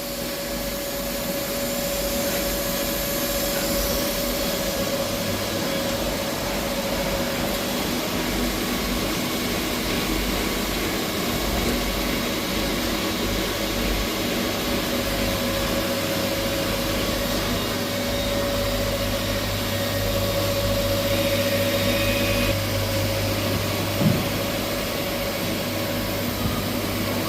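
CNC machines running on a machining floor: a steady mechanical hum and hiss with a constant high-pitched whine, and a single short knock near the end.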